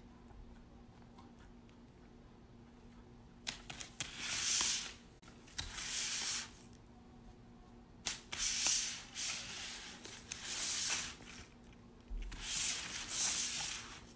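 Crinkly foil food wrapper rustling as a cat paws and tugs at it, in repeated bursts of a second or two with quiet gaps between.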